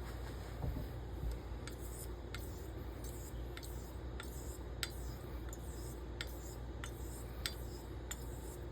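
Straight razor stroked back and forth over a very fine Belgian coticule whetstone in a thin slurry: a soft, steady wispy rubbing, with a faint light tick every half second to second.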